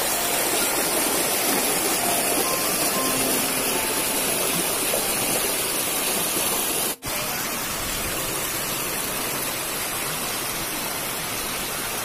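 Water of a small rocky stream rushing and splashing down cascades over rock slabs, a steady noise. It drops out briefly about seven seconds in, then goes on a little quieter.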